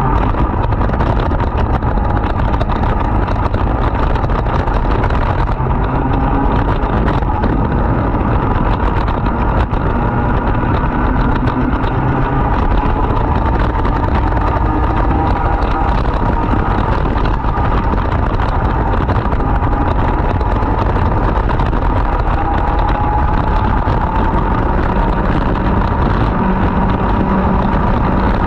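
Racing kart's two-stroke engine running hard and continuously, its pitch rising and falling slightly as the revs change.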